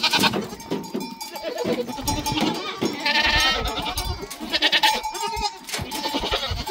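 Goats bleating several times, each call with a shaky, wavering pitch, amid the ringing of livestock neck bells.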